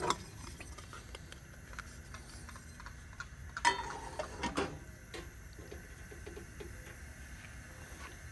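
A metal lid set down on a small steel pot on a camp stove: a clank with a short metallic ring about three and a half seconds in, then a second clink just under a second later. Under it, the steady rush of the Coleman 413G's lit burner heating the water and scattered light ticks.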